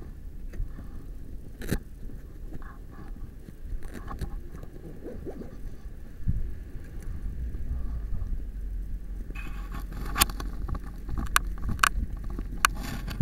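Rubbing and scraping from the handheld camera being moved about, with several sharp clicks near the end, over a low steady rumble.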